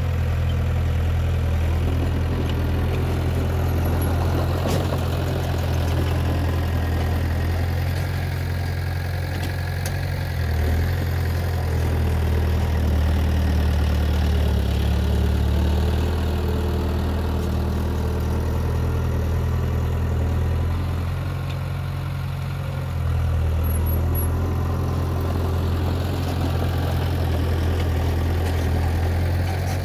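A heavy construction machine's diesel engine running steadily, with slight shifts in engine speed about ten and twenty-three seconds in.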